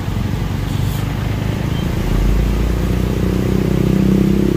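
Heavy diesel truck engine running, its revs climbing about two seconds in and holding higher.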